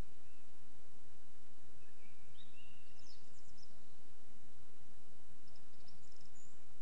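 Birds singing in the first songs of the dawn chorus over a steady background hiss: a short song phrase with a high trill about two and a half seconds in, then a few high thin notes near the end.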